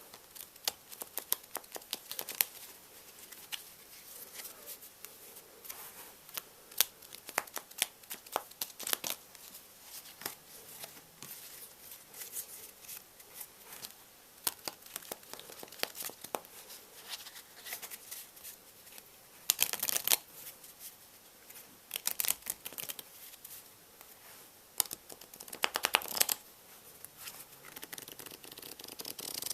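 Playing cards being handled and shuffled close to the microphone: a run of sharp snaps and clicks, with denser bursts of rapid clicking about two-thirds of the way through and again near the end.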